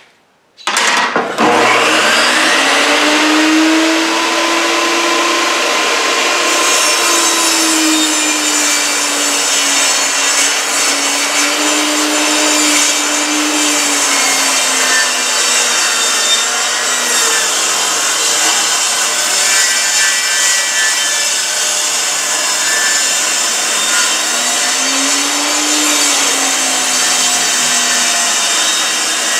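Table saw starting up about a second in, then running steadily while ripping a 2x4 lengthwise. The blade's tone dips and rises slightly as it cuts through the wood.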